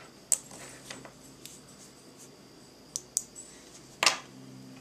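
Small magnets from a 216-piece magnet toy set clicking as they are snapped together: a handful of separate sharp clicks, the loudest about four seconds in.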